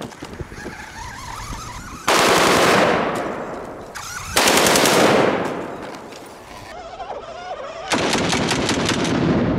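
Full-auto AK-47 rifle firing 7.62×39 mm rounds: three bursts of rapid fire, about two seconds in, again about four and a half seconds in, and a longer one near the end.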